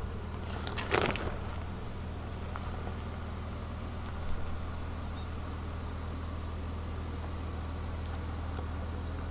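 Ford Ranger Raptor pickup's engine running at low, steady revs as it crawls over rocky ground. A sharp knock comes about a second in, and a smaller one a little after four seconds.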